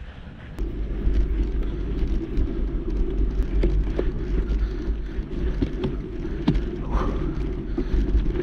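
Mountain bike ridden over rough, stony ground on a steep climb. A steady low rumble from the tyres and frame starts about half a second in, with frequent sharp clicks and rattles from stones and the bike.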